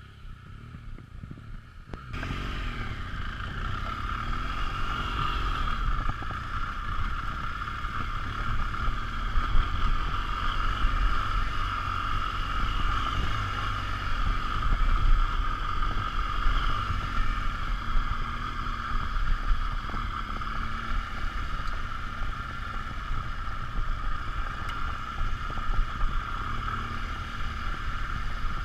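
BMW R 1200 GS LC's boxer-twin engine running with a low drone under wind rushing over the microphone while riding a rough gravel trail. It starts abruptly about two seconds in.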